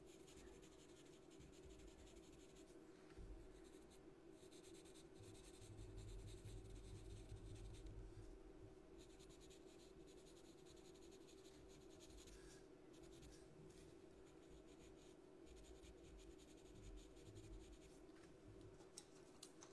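Faint scratching of a pastel pencil on Pastelmat pastel paper in repeated small shading strokes, over a low steady hum.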